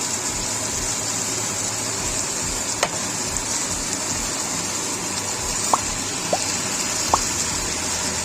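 Sauce sizzling steadily in a frying pan after water has been added to the fried aromatics, with a few light clicks scattered through it.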